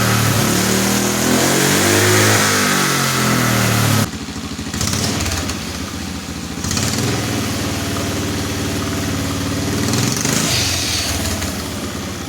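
Lawnmower-engine motorcycle running: for the first four seconds the engine revs up and down over a loud rushing hiss, then an abrupt cut to a quieter, steadier engine note near idle that shifts slightly a couple of times.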